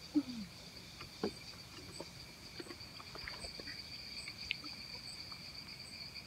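Steady high-pitched chirring of crickets, with a few scattered faint clicks and knocks.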